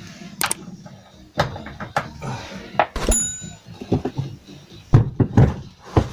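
Knocks and clicks of the rear parcel shelf and its fittings being handled and worked loose, with one short metallic ping about three seconds in and a run of louder knocks near the end.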